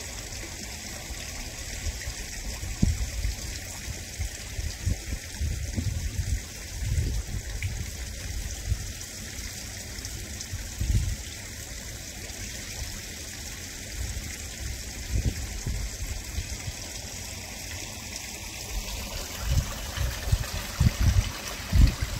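Garden koi pond water trickling and splashing, a steady hiss of running water, with irregular low thuds that come more often near the end.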